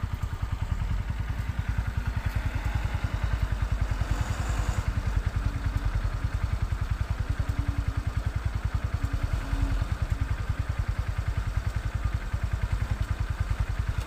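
Small motorcycle engine idling close by, a steady rapid putter.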